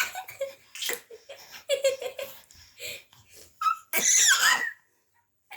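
Baby giggling in short bursts, with a louder, high-pitched squeal of laughter about four seconds in. The sound cuts out completely near the end.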